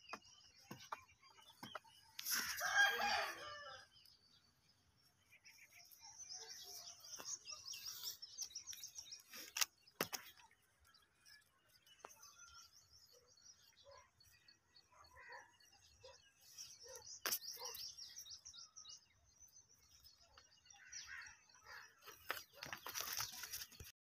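A rooster crowing once, the loudest sound, about two seconds in, over a steady chatter of small birds chirping, with more birdsong near the end. Two sharp clicks, about ten and seventeen seconds in.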